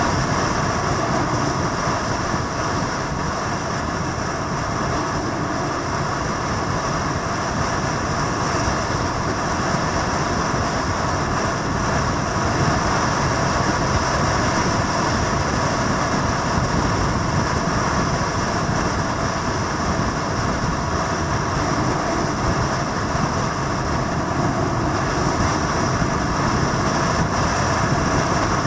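Steady motorcycle engine noise, a dense even running sound with no clear revs or breaks.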